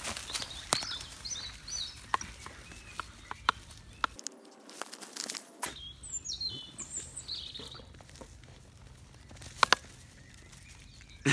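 A dog rooting and digging with its nose in dry grass and soil, giving a run of scratching, rustling clicks. Small birds chirp a few times in the background.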